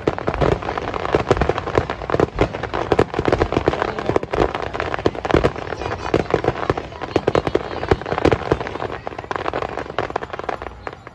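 Fireworks display: a rapid barrage of aerial shell bursts, many sharp bangs and crackles each second, thinning out near the end.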